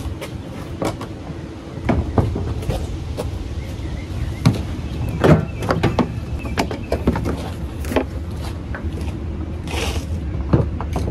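Ford Fiesta headlight assembly being worked loose and pulled out of the front end: irregular plastic clicks and knocks, the loudest about halfway through, with a short scrape near the end.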